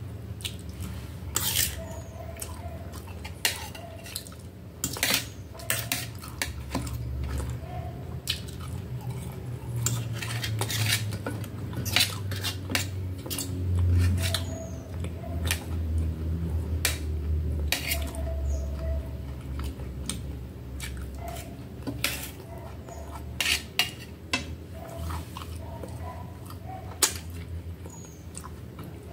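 Metal fork and knife clinking and scraping on a stainless steel plate while food is eaten and cut, with frequent sharp clicks.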